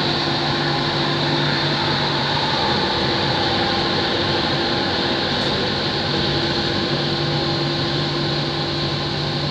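Steady running noise and hum inside an elevated metro train as it pulls into a station. A low hum fades for a few seconds in the middle and then returns.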